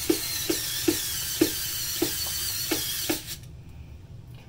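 Small cordless electric screwdriver running, with a sharp click about twice a second as it slips on a tight screw, stripping it. It stops about three seconds in.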